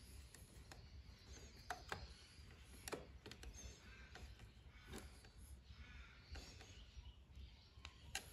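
Near silence, with a few faint clicks of hands and a small pick working an O-ring on a plastic carburettor cap.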